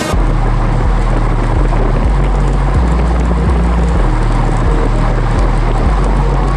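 Wind roaring over a ride camera's microphone while cycling into a strong headwind, under background music whose bass line steps from note to note about every 0.7 seconds.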